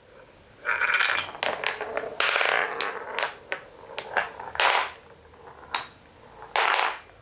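Wooden balls rolling on a wooden marble run and knocking against loose wooden blocks: several short rolling runs, the longest about a second in and again past two seconds, broken up by a string of sharp wooden clacks.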